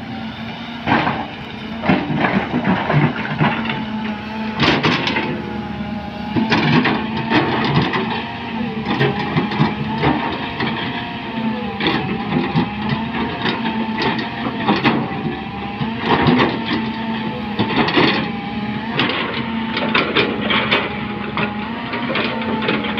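A Volvo crawler excavator's diesel engine running steadily with a wavering hydraulic whine as it digs, over which come repeated short clanks and knocks.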